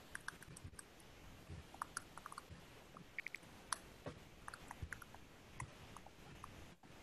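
Faint, irregular keystrokes on a computer keyboard, some coming in quick runs.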